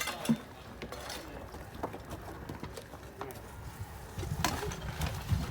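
Stone foundation masonry work: scattered knocks and clicks of stones and tools, a few each second, with a low wind rumble on the microphone near the end.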